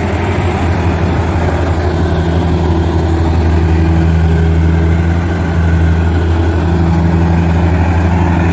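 Crawler rice combine harvesters running at work in the rice, a steady, loud engine-and-machinery drone with a strong low hum.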